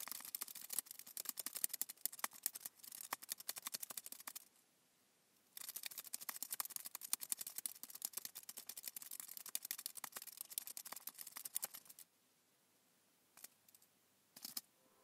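Rapid computer-keyboard typing: two long runs of quick keystrokes with a pause of about a second between them, then two or three single keystrokes near the end.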